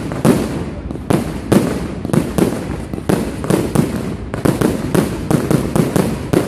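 Fireworks display: a rapid, irregular barrage of shell bursts and cracks, several bangs a second with no let-up.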